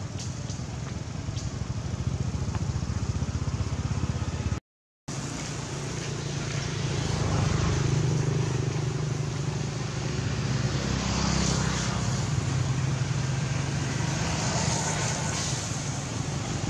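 A motor engine running steadily, a low hum. The sound drops out completely for about half a second just under five seconds in.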